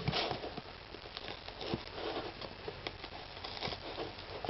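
Knife blade sawing and scraping through packing tape on a shipping package: irregular small scratches, clicks and crinkles of tape and packaging.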